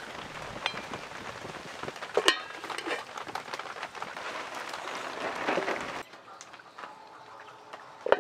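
A spatula stirring fish curry in a metal pan, with a sharp metal clink about two seconds in and a few lighter taps, over a steady hiss that drops away about six seconds in.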